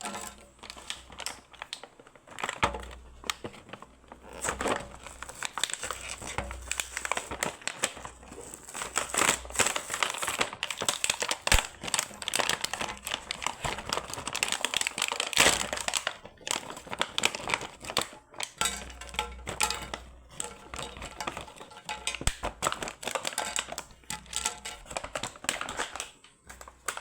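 Plastic packaging crinkling and rustling as it is handled, with many irregular sharp crackles.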